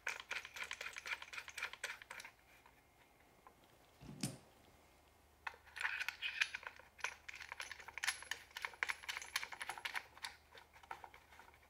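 Rapid faint clicking of a small metal stud being turned finger-tight into a threaded hole in a Swagger bipod's housing, in two runs with a soft knock between them about four seconds in.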